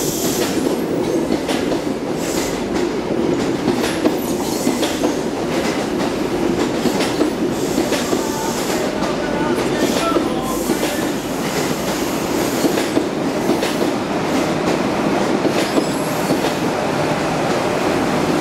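Coaches of an East Coast HST (InterCity 125) passing along a platform, a steady loud rumble with the wheels clattering over rail joints. About halfway through, a voice shouts faintly from an open coach window.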